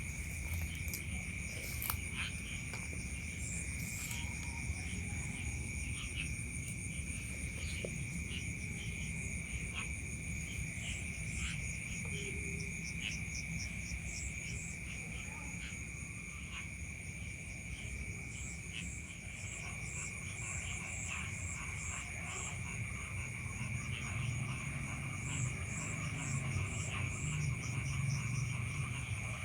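Night chorus of insects: several steady high trills and runs of short, quickly repeated chirps, over a low rumble.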